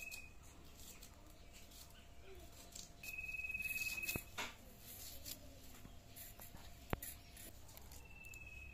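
Scattered sharp clicks of a small blade cutting and peeling onion and spiny gourd by hand, the loudest a single click about seven seconds in. A high, steady whistle lasting about a second sounds twice, about three seconds in and again near the end.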